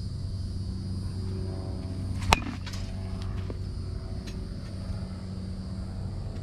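A baseball bat hitting a ball off a batting tee: one sharp crack about two seconds in, followed by a few fainter knocks, over a steady low hum.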